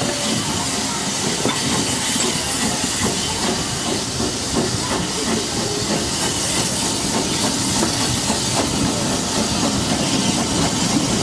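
Steam locomotive hissing steam as the train moves slowly along the platform, heard from a carriage window, with light irregular clicks from the wheels and carriage.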